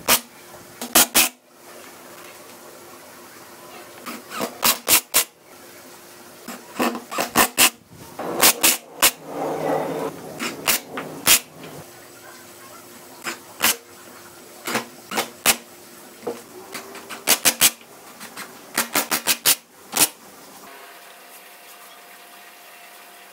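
Makita cordless impact driver driving screws into pine boards in repeated short bursts, each a cluster of sharp, rapid impact clicks.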